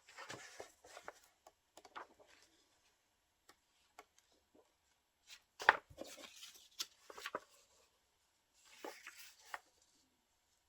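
Glossy magazine paper being handled and rustled, with scattered light taps and one sharper click a little over halfway through.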